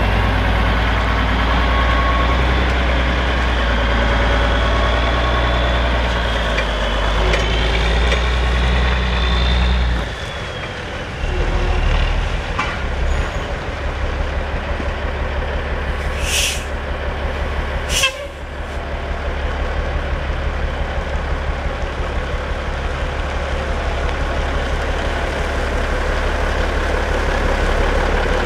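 A 1991 Peterbilt logging truck's diesel engine running steadily, with a whine that rises in pitch over the first several seconds. The engine's low note drops about ten seconds in. Two short, sharp hisses of air come a second and a half apart around the middle.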